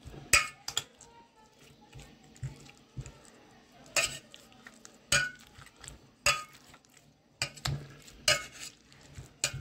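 Steel ladle knocking and scraping against a steel bowl while mashing boiled Indian olives, with sharp metallic clinks at irregular intervals.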